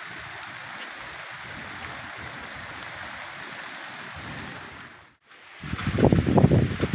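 Heavy rain falling steadily, an even hiss. A little after five seconds the sound drops out briefly, then returns with a louder, irregular low rumbling buffeting over the rain.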